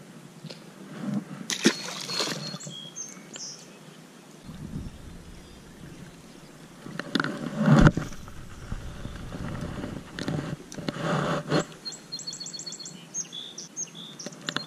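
Rustling and knocking of clothing and hands against a chest-mounted camera as a small largemouth bass is lowered back into the lake, with a loud thump about eight seconds in. A small bird chirps in quick runs of notes twice, near the start and again near the end.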